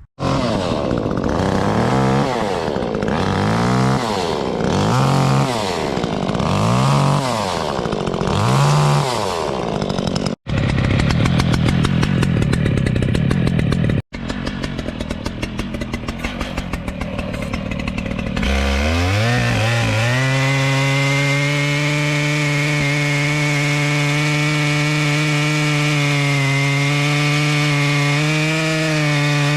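Two-stroke chainsaw being revved over and over, its pitch rising and falling about every second and a half. After two abrupt cuts it climbs to full speed about two-thirds of the way in and holds there at a steady high pitch.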